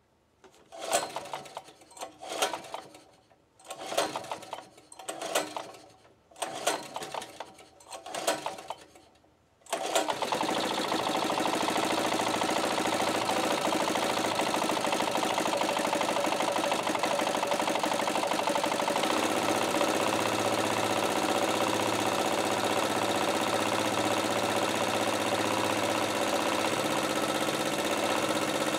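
A portable generator's engine being cranked with its pull-cord starter, about six pulls, before it catches about ten seconds in and settles into steady running. The engine is running on wood gas from a gasifier.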